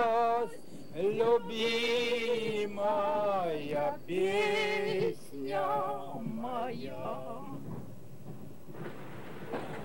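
A single voice singing unaccompanied: long held notes with vibrato, then a few shorter, quicker phrases, dying away about eight seconds in.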